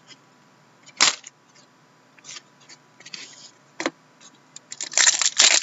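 Stack of Upper Deck Trilogy hockey cards being flipped through and shuffled by hand: a sharp card snap about a second in, a few soft ticks, then a quick run of card snaps and rustles near the end.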